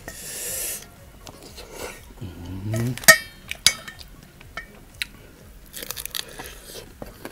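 Close-up eating sounds: a short hiss of sucked-in air, a brief hummed "mm", two sharp clicks of wooden chopsticks on a stainless steel plate, then crunching bites into fried chicken.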